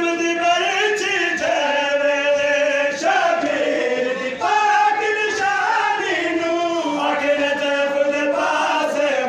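Men chanting a noha, the Shia mourning lament, in long held and gliding notes. Sharp slaps land about once a second, in keeping with chest-beating (matam) in time with the chant.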